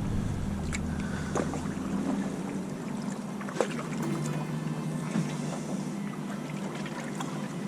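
A small paddled boat sitting on the water, with water moving at the hull and a few light knocks scattered through.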